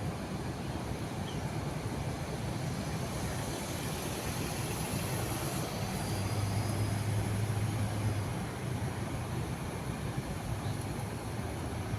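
Steady low rumble with hiss, swelling a little about six seconds in and easing again about two seconds later; no clear bird calls stand out.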